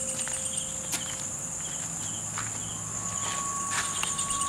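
Crickets and other night insects chirring steadily in a high, pulsing trill, with a few light taps. A steady tone joins about three seconds in.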